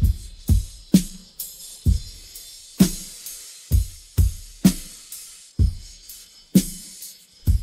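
Rock drum kit, isolated from a full mix by stem separation, playing a slow steady beat. Bass drum and snare alternate, the snare landing about once a second, over a continuous wash of cymbal and hi-hat.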